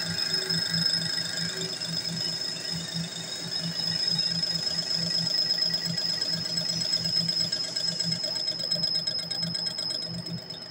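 Metal lathe running, turning a metal disc workpiece with a tool bit at the work. A steady high-pitched whine runs over a low, rapid pulsing.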